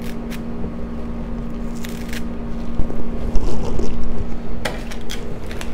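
Kitchen scissors snipping fresh chives: a handful of short, sharp snips, a couple at a time, spaced a couple of seconds apart, over a steady low hum.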